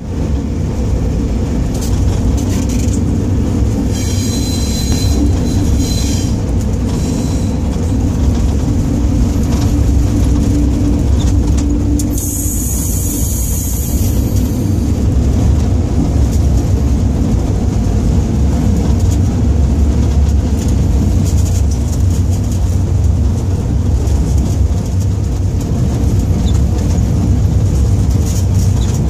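Cab of a DR class 231 diesel locomotive rolling into a station: a steady low diesel rumble with rail running noise. A brief high-pitched wheel squeal comes about four seconds in, and a short hiss around twelve seconds.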